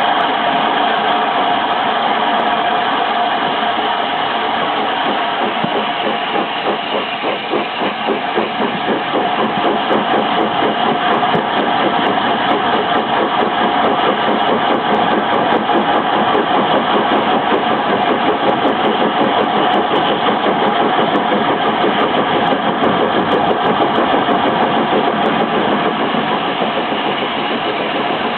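Steam-hauled train on the move behind the Peppercorn A1 Pacific Tornado: a steady running noise with a fast, even pulsing that sets in about six seconds in.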